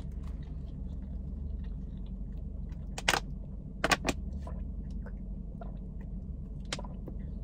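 A handful of sharp clicks and crackles from drinking from and handling a plastic water bottle, the clearest about three and four seconds in and a smaller one near the end, over a steady low hum inside a car.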